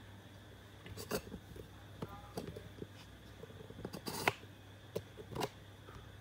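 Quiet room with a steady low hum and a few short clicks and rustles, the loudest about four seconds in.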